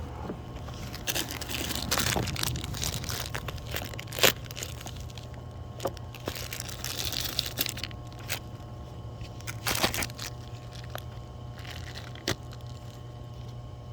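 Three packs of fireworks lit at once, burning with a crackling hiss and a few sharp pops, about four seconds in, near ten seconds and again about twelve seconds in.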